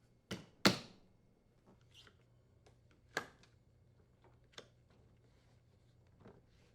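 Plastic hinge covers being slid onto a wine cellar's door hinges and the hinge screws tightened with a Torx bit: two sharp clicks in the first second, then a few faint scattered ticks.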